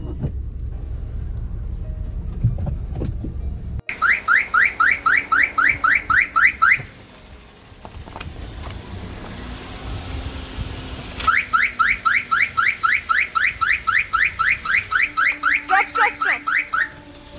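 Low engine and road rumble inside a moving car. Then a car's electronic alarm sounds a fast run of rising chirps, about four a second, pauses for a few seconds, and starts again for a longer run.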